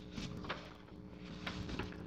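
Fabric rustling as a piece is handled, a few short soft scuffs at uneven moments, over a faint steady hum.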